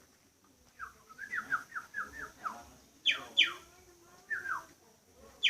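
A songbird singing a series of short, quick downward-slurred chirps, with two louder, longer sweeping notes falling from high to lower pitch about three seconds in, then more short falling chirps.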